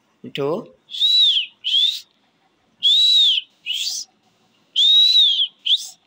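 Young rose-ringed parakeet calling: three pairs of shrill calls that rise and fall in pitch, each a longer call followed by a short one.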